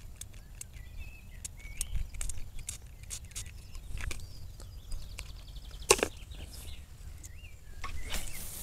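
Small birds chirping and trilling by the water, over faint clicks of tackle being handled, with one sharper knock about six seconds in.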